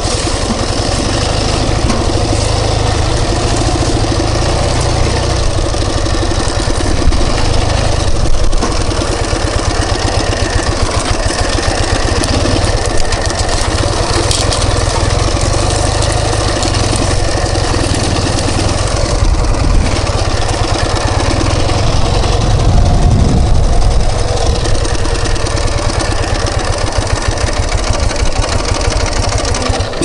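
Ural Tourist sidecar motorcycle's flat-twin engine running steadily as the bike rides slowly over rough grassy ground.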